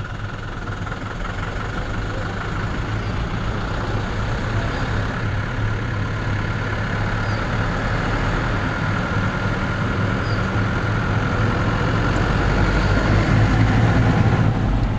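Engine of a large vehicle running steadily, heard from inside its cab, a low drone that grows louder toward the end.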